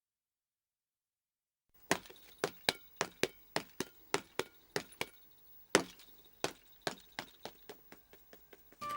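After two seconds of silence, a series of about twenty sharp, clinking taps, roughly three a second, growing fainter, with one louder tap near the middle.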